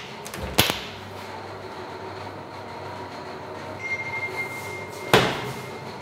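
Wooden wardrobe doors being handled: a sharp knock about half a second in, a steady rolling rumble, then a louder knock a little after five seconds in.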